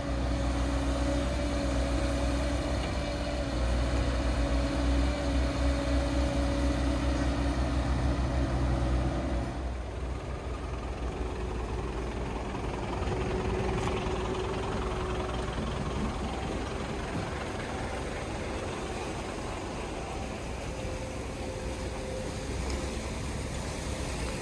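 Heavy diesel machinery running steadily: the engines of a waste material handler and a primary waste shredder, with a low hum and several steady tones. The mix of machine tones changes about ten seconds in.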